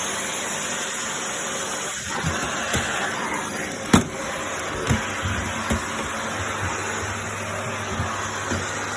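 Vacuum cleaner running steadily, with a few short knocks over its sound, the loudest about four seconds in.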